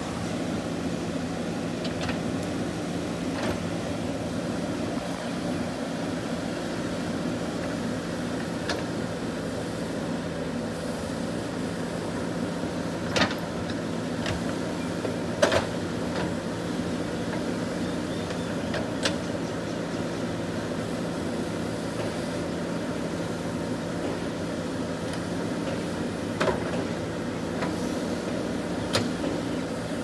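JCB backhoe loader's diesel engine running steadily under load as the backhoe digs, with a handful of sharp knocks as the bucket and arm work; the loudest knock comes about halfway through.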